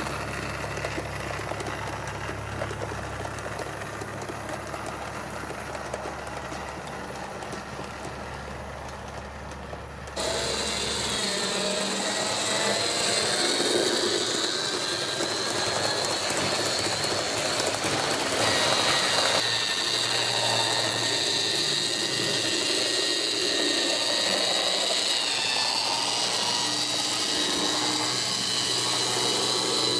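Model train locomotive running: a small electric motor and gearing whining steadily, over a low hum. About ten seconds in the sound changes abruptly and becomes louder, with a higher, slightly wavering whine.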